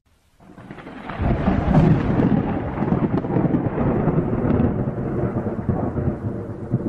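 Rolling thunder rumbling heavily. It rises out of near silence about half a second in and swells to full strength within a second, then continues loud with a crackling texture.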